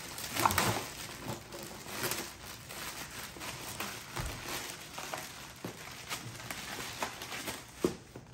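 Clear plastic wrapping crinkling and rustling as it is pulled off a stand-up paddle board hand pump, with irregular small clicks and handling knocks.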